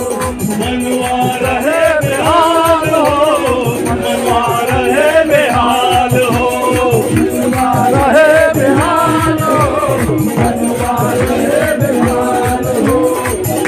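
Live Hindi devotional song (bhajan) sung by a group of voices, accompanied by harmonium and a steady beat of drum and rattling hand percussion.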